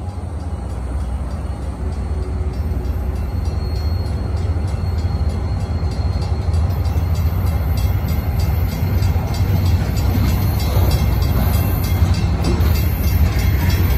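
Portland & Western freight train's diesel locomotives rumbling past a grade crossing, growing louder as the train goes by. Over the rumble the crossing's two mechanical bells ring in rapid, even strokes.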